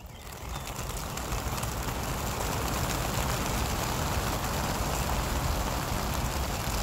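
Wing beats of a flock of some 2,500 racing pigeons released at once from a transport truck's crates: a dense, rain-like rush of flapping that swells over the first second or two, then holds steady.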